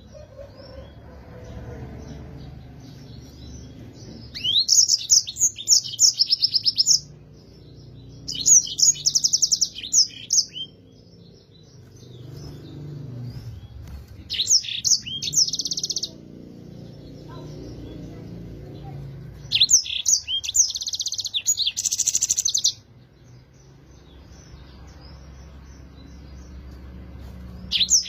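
Yellow-fronted canary singing in four bursts of two to three seconds each, quick high trills and chirps, over a faint, steady low rumble.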